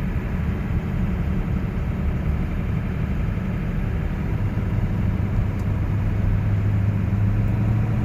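Car engine and road noise heard from inside the moving vehicle: a steady low rumble, with the engine hum growing stronger about halfway through as the car gets under way.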